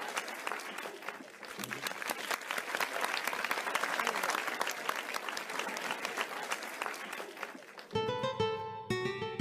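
Audience applauding, a dense clatter of clapping that thins out slightly, then about eight seconds in it breaks off abruptly and plucked guitar music begins.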